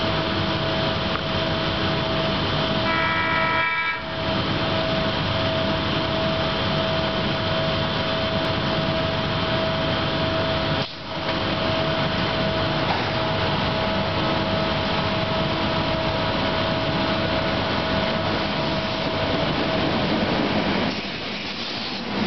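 Steady hum and whine of a SEPTA Silverliner IV electric multiple-unit train standing at the platform, its blowers and auxiliary equipment running, with a short horn blast about three seconds in. Near the end the whine fades under the rumble of a Silverliner train pulling in.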